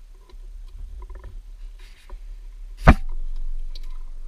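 Plastic tie-wraps being fitted and pulled tight by hand around the rubber boot of a jet ski drive shaft coupling, with small clicks and a short rasp. One sharp knock comes about three seconds in, over a steady low hum.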